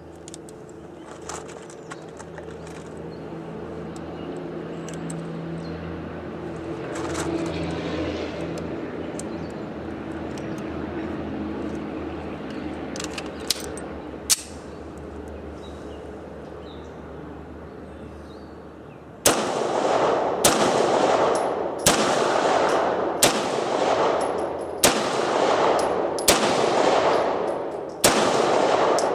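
Seven shots from a Beretta 92FS 9mm pistol, fired one at a time about a second and a half apart, each echoing, starting about two-thirds of the way in. Before them a steady low hum, with a couple of sharp clicks from handling the pistol.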